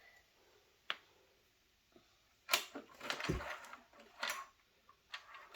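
Plastic toy pieces being handled and set down on a table: a single click about a second in, then a cluster of clicks and rustles with a soft thud in the middle.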